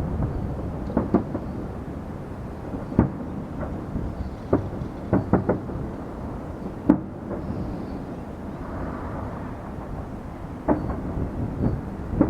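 Fireworks exploding: irregular sharp bangs, some two or three in quick succession, over a continuous low rumble of bursts.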